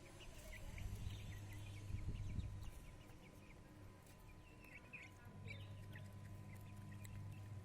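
Chicks cheeping in short, high peeps scattered throughout, over a low steady hum that comes in for a couple of seconds near the start and again from about five seconds in.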